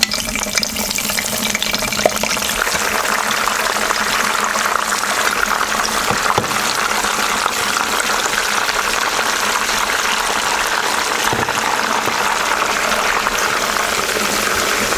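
Soya chunks frying in hot oil in a non-stick frying pan: a steady, dense sizzle that builds over the first couple of seconds after the chunks go in and then holds. A light knock comes about two seconds in.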